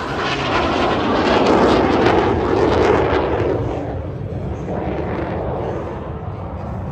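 BAE Hawk 127 jet trainer flying past, its single Adour turbofan loud for about three seconds and then fading steadily as it moves away.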